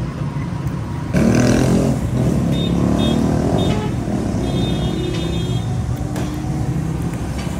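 Road traffic running steadily, with a motor vehicle's engine noise coming in abruptly and louder about a second in.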